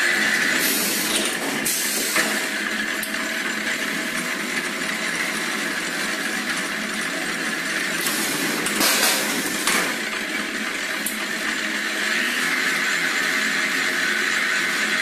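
A sugar cone baking and rolling machine running with steady mechanical noise. A high squeal fades out at the start and comes back in the last few seconds, and a few short hisses come through about one and two seconds in and again around eight and nine and a half seconds.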